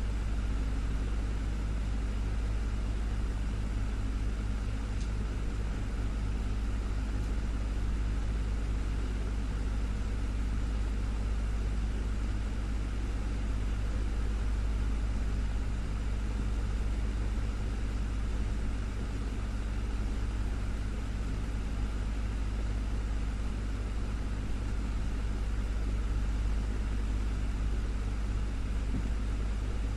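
Desktop fan running steadily: a constant low hum under an even rush of air.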